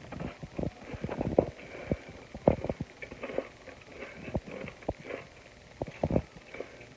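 A crispy cheese taco shell being bitten into and chewed, giving a run of irregular sharp crunches.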